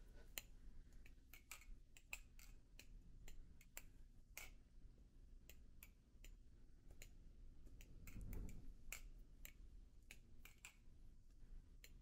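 Balisong trainer being flipped: faint, irregular clicks and clacks as the handles swing and knock against the blade.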